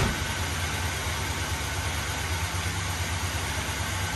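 Pickup truck engine idling steadily with the hood up, run so the newly installed TH350 automatic transmission's fluid can be checked on the dipstick. A single sharp knock comes right at the start.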